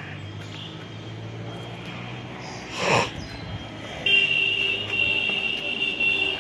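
Road traffic: a low engine hum, a short whoosh about three seconds in, then a vehicle horn held steadily from about four seconds in.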